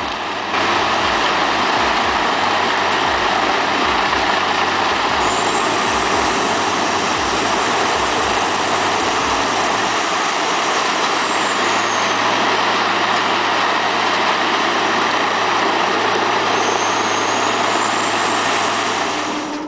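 Heavy wood-processing machinery running under load: a loud, steady, dense noise with a thin high whine that comes in and fades away twice.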